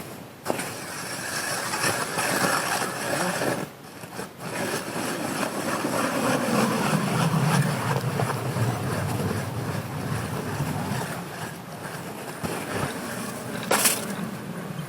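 A vehicle engine running under heavy wind noise on the microphone, its pitch sinking about halfway through. There is a sharp click at the start and another near the end.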